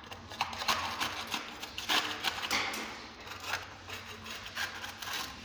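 Putty knife scraping across a wall, prising off cracked, flaking paint in irregular scratchy strokes with crackling as the flakes break away from the bad plaster.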